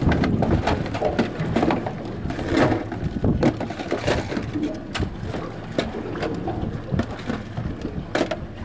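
Irregular clatter and knocks of gear being rummaged through on a small boat, as someone searches for fish grips.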